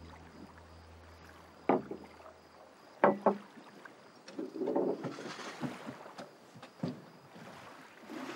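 Background music fades out in the first seconds, then a few sharp knocks and a scraping rustle as a chair is pulled out at a wooden table and a man sits down.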